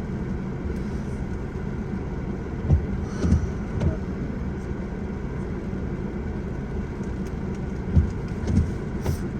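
A motor vehicle running with a steady low rumble, with several dull thumps: a cluster about three seconds in and another near the end.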